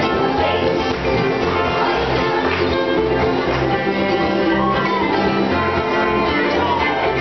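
Contra dance tune played by a string band: fiddle and guitar over a steady bass beat.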